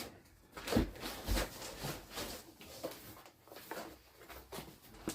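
Boxes, packaging and kit parts being handled and set down on a table: irregular rustles and light knocks, with two soft thumps about a second in.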